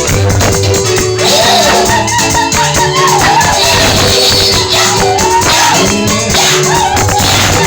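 Loud live church praise music: a singing voice carrying a bending melody over sustained keyboard-like chords, with shaker and rattle percussion keeping a steady beat.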